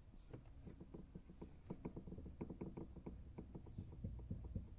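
Loose heater core of a Ford Focus 2 knocking in its housing as it is moved: a quick, irregular run of light clicks and knocks. The play of the core is the cause of the knock heard over small bumps.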